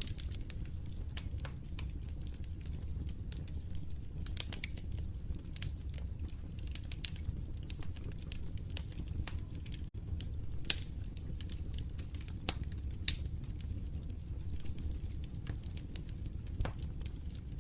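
Log fire in a fireplace crackling: irregular sharp pops and snaps over a steady low rumble, with a few louder pops past the middle. The sound drops out for a split second near the middle.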